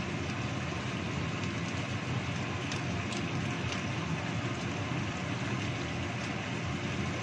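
Chicken stewed in coconut milk simmering in a wok over a gas burner: a steady rushing, bubbling noise, with a few faint pops about three seconds in.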